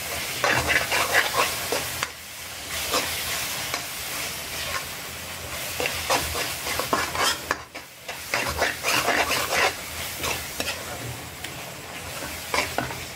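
A steel spoon scraping and stirring thick, mawa-rich lauki barfi mixture around a metal kadai in irregular strokes, with the mixture sizzling underneath as it is cooked down and dried out. The stirring pauses briefly a little over halfway through.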